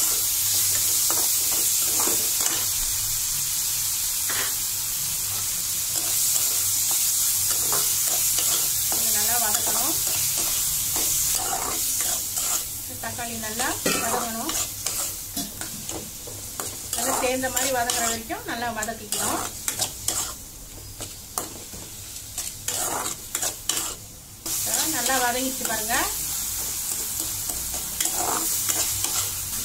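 Chopped onion, tomato and ginger-garlic paste sizzling in hot oil in a metal kadai while a metal spoon stirs and scrapes the pan. The sizzle is steady for about the first ten seconds, then gives way to intermittent scraping strokes with a fainter sizzle under them.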